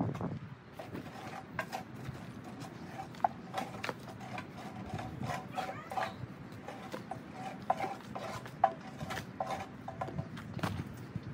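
Irregular light metal clanks and clicks from a pedestal charcoal grill being handled, some of them ringing briefly.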